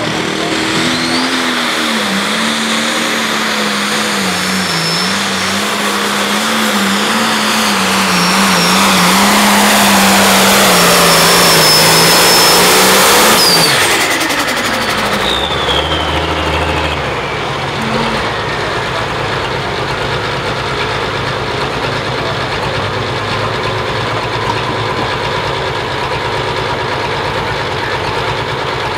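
Turbocharged diesel engine of a Farmall limited pro stock pulling tractor running at full throttle under load with a high turbo whistle, growing louder. About 14 seconds in it comes off throttle at the end of the pull, the turbo whistle winds down, and the engine settles to a steady idle.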